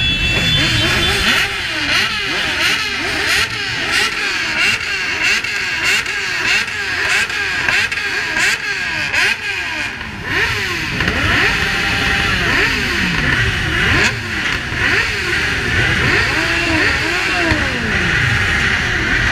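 A crowd of motorcycles revving their engines over and over, many throttle blips overlapping, each rising and falling in pitch.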